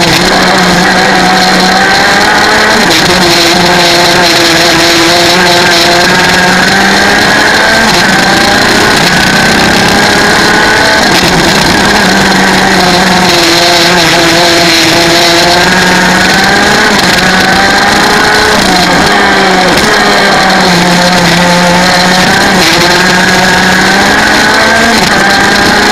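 125 cc two-stroke kart engine at full racing speed, its revs climbing along the straights and dropping off into the corners several times over.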